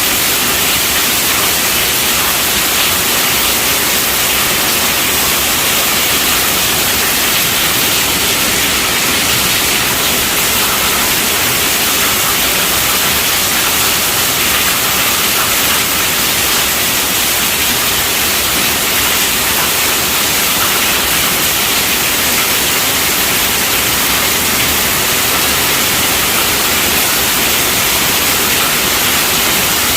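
Heavy rain falling steadily on a tent roof, a loud, even hiss with no breaks.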